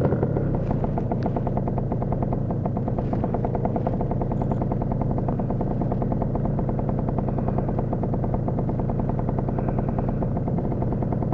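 Lambretta scooter's single-cylinder two-stroke engine running at a steady speed while being ridden, its exhaust a rapid, even pulse.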